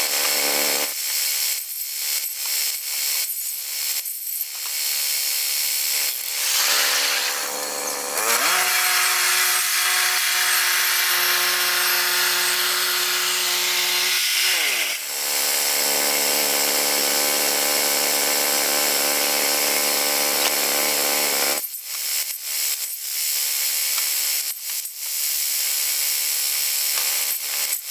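Woodland Mills HM122 portable bandsaw sawmill running, its engine steady and the band blade hissing through a log. The engine pitch drops for about six seconds in the middle and then comes back up. About 22 seconds in, the steady engine sound falls away and scattered knocks and clatter follow.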